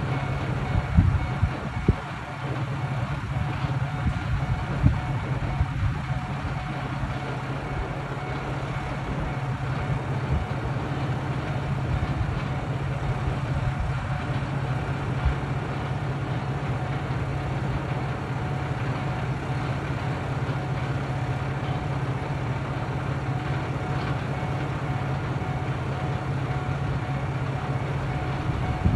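Diesel railcar's engine idling steadily at a standstill, a continuous low hum, with a few sharp knocks in the first five seconds.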